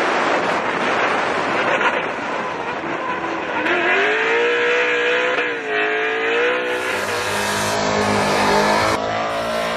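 Drift car sliding sideways with its engine held at high revs over loud tyre noise. A steady engine note rises about three and a half seconds in and wavers, and the sound changes abruptly around seven seconds in.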